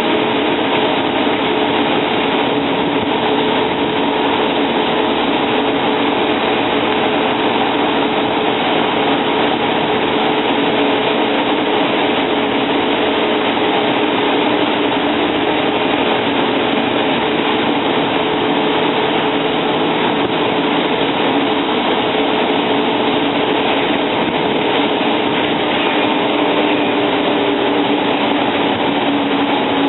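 Cummins L10 inline-six diesel of a Volvo Olympian double-decker bus running steadily, heard from inside the bus: a constant rush of engine and road noise with a steady droning hum. The hum's pitch rises slightly near the end.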